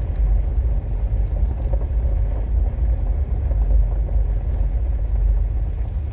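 Steady low rumble of road and engine noise inside a vehicle's cabin while driving slowly on a bumpy dirt road.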